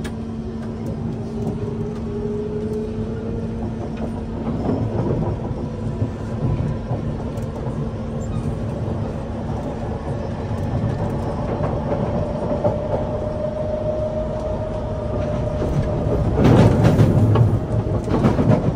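Kawasaki C151 metro train heard from on board, its wheels rumbling along the track while the traction motor whine rises slowly in pitch as it gathers speed after leaving the station. Near the end there is a louder stretch of rattling from the wheels on the track.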